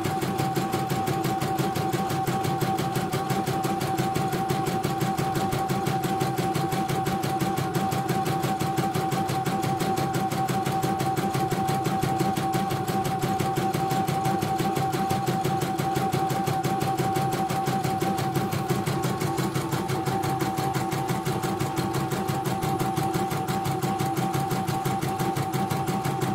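CNY portable embroidery machine stitching a test design, the needle running in a rapid, even rhythm over a steady motor whine.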